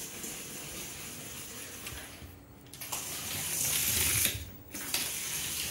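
Small radio-controlled toy car's electric motor and gears whirring as it drives, louder for a second or so past the middle, with two brief pauses.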